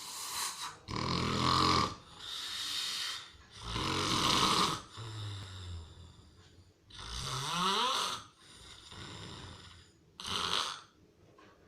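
A person snoring loudly: rough, rattling snores alternate with breathy exhales, one every one to two seconds. One snore a little past halfway rises in pitch.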